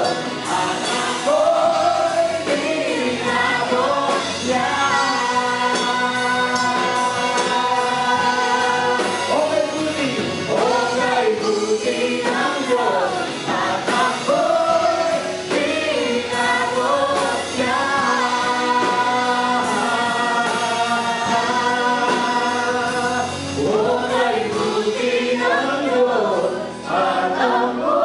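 Congregation singing a Tagalog worship song together with a live worship band, many voices on long held notes over the band's accompaniment.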